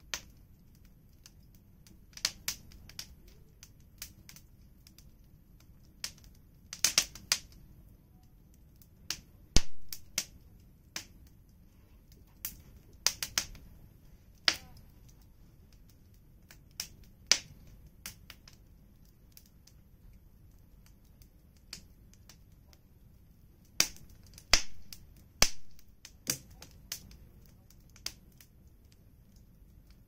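Wood fire crackling: irregular sharp pops and snaps from the burning firewood, sometimes several in quick succession, over a faint low background.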